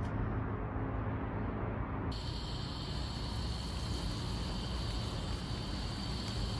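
Low steady hum of distant city traffic, then, after an abrupt change about two seconds in, a steady high sizzling hiss from a pan of koofte meatballs cooking in tomato sauce on a portable gas burner.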